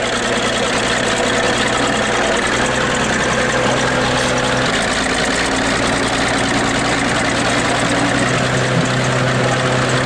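Old crawler bulldozer's engine running steadily under load as it pushes into a wrecked car, its note stepping up slightly about halfway through.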